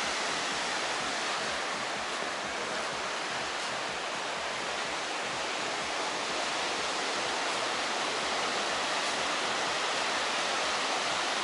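Steady wash of small surf breaking and running up a sandy beach.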